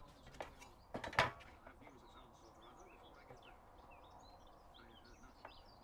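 A few knocks and clatters as handsaws are shifted on an MDF board, the loudest a little over a second in, with a smaller one near the end. Birds chirp faintly in the background.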